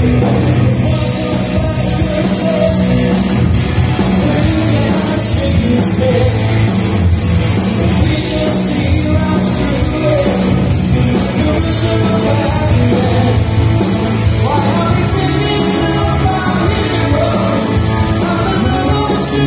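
Rock band playing live: electric guitars, bass and drums, with a lead singer.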